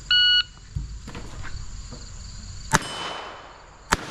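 Electronic shot-timer start beep, then two handgun shots at steel targets, the second a little over a second after the first. Insects trill steadily underneath.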